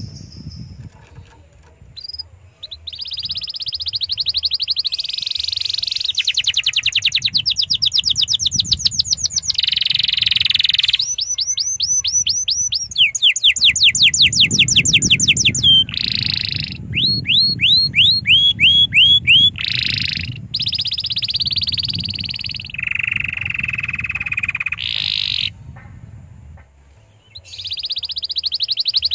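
Domestic canary singing a long, varied song: fast trills of rapidly repeated rising notes, rolling phrases and a lower, steadier phrase. Brief pauses come near the start and again near the end.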